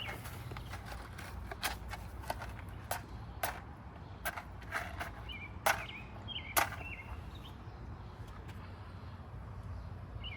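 A lighter clicking repeatedly, about eight sharp clicks over several seconds, to light charcoal soaked in lighter fluid. Birds chirp in the background.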